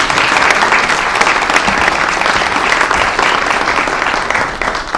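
Audience applauding, a dense clapping that thins out and fades near the end.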